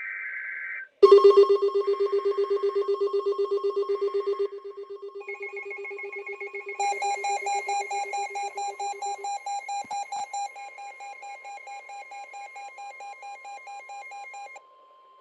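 NOAA Weather Radio alert sequence for a special marine warning. A short burst of the SAME header's data screech gives way to the steady 1050 Hz warning tone, which holds throughout. Over it, several rapidly pulsing electronic alarms, typical of weather-alert receivers going off, come in one after another at about one, five and seven seconds in, and the first is the loudest.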